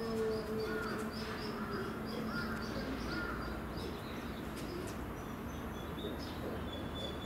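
End of a Chinese wolf's howl, its pitch falling as it trails off in the first half second, with a lower drawn-out note fading over the next couple of seconds. Faint short chirping calls follow.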